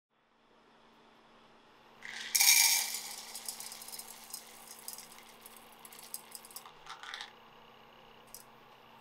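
Small hard wax pellets clattering into a ceramic dish: a loud burst of rattling clinks about two seconds in that settles into scattered small clicks and stops a few seconds later.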